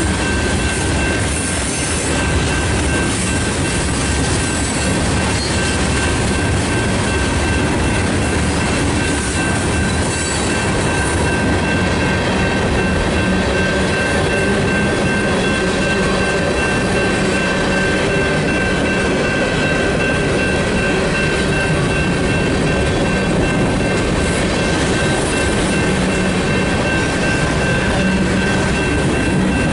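CSX manifest freight train's cars rolling past at speed: a steady loud rumble and clatter of wheels on rail, with a thin steady high-pitched tone over it.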